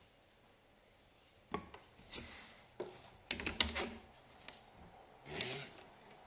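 Wooden rigid heddle loom being worked: after a quiet start, a handful of light wooden knocks and clacks as the heddle is shifted and the weft beaten lightly into place, then a rubbing swish of the shuttle and yarn drawn through the warp.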